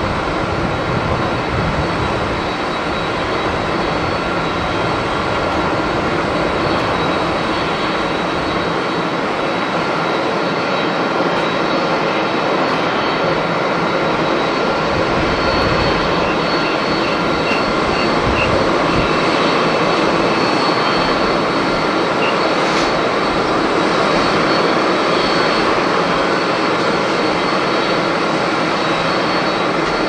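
Jet engines of a Japan Airlines Boeing 767 as it lands and rolls out on the runway: a steady rushing noise with a high whine, swelling slightly about two-thirds of the way through.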